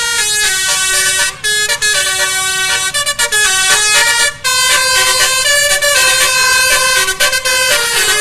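Bus telolet horn, a basuri-type multi-trumpet air horn, playing a tune: a loud string of stepped horn notes, broken briefly about one and a half and about four and a half seconds in.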